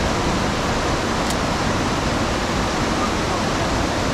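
River rapids rushing over boulders, a loud, steady roar of white water.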